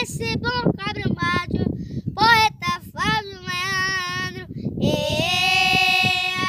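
Children singing unaccompanied: a quick run of sung syllables, then two long held notes.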